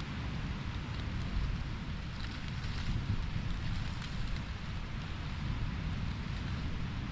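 Wind buffeting the microphone with a steady rumble, over an even outdoor hiss.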